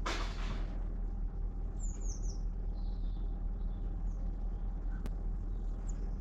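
A few short, high chirps of small birds in the background over a steady low rumble, with a brief rustle at the start and a single click about five seconds in.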